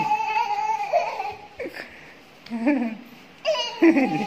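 A toddler squealing and laughing: one long high squeal first, then a few shorter bursts of laughter.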